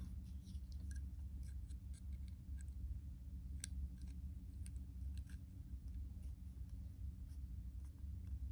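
Faint, irregular small clicks and ticks of metal jewellery pliers working and bending fine jewellery wire, over a low steady hum.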